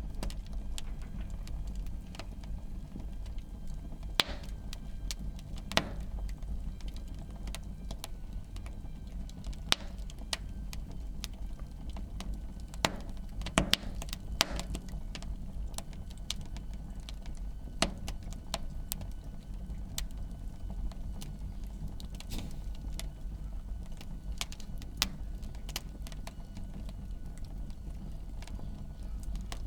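Wood fire burning in a fireplace: irregular crackles and sharp pops over a steady low rumble, with a few louder pops scattered through.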